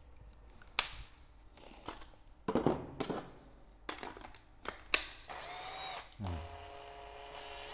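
Sharp plastic clicks and knocks as the 12 V battery pack of a Makita cordless oil-pulse (hydraulic) impact driver is pulled and handled against the tool and its case. About five seconds in the driver's motor whines up briefly and drops away, then keeps running slowly under a lightly held trigger: a no-load check of the variable-speed trigger.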